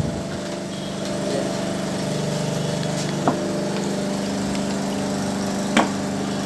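A small engine running steadily at an even pitch, with two sharp knocks, about three and six seconds in.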